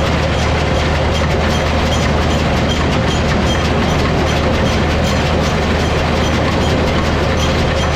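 Farm tractor engine running at a steady speed, with a regular rattling clatter from the hay machinery it is working.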